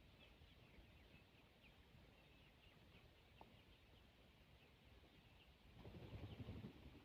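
Faint, continual peeping of chickens, many short high chirps a few times a second, with a soft rustle about six seconds in.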